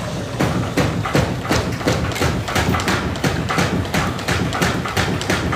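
A rapid, irregular series of thumps and taps, about three a second.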